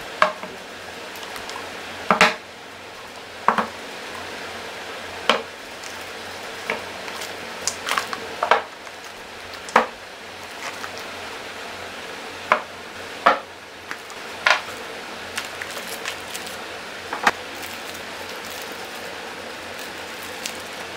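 Makeup foundation bottles being set down one by one on a drawer: about a dozen short clinks and taps of hard containers on a hard surface, irregularly spaced every second or two.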